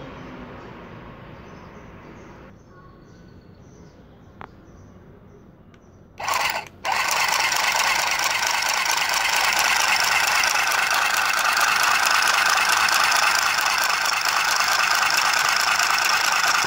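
Kiwi battery-powered handheld sewing machine switched on: a brief burst about six seconds in, a short stop, then running steadily for about ten seconds, its small motor whirring and the needle clattering in a fast even rhythm as it stitches a paper towel. It cuts off suddenly at the end.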